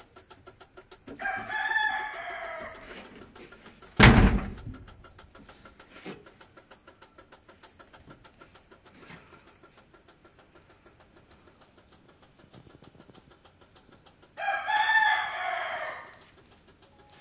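A rooster crows twice, about a second in and again near the end, each crow lasting about two seconds. A single sharp bang falls about four seconds in and is the loudest sound.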